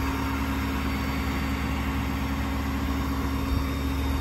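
Ford F550's 6.7-litre Power Stroke V8 diesel idling steadily, a constant low hum with a steady tone above it, the PTO engaged for the boom's hydraulics.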